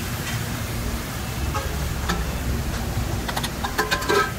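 Steady low background rumble with a few clinks and knocks of steel bowls and pots, the clearest and briefly ringing near the end.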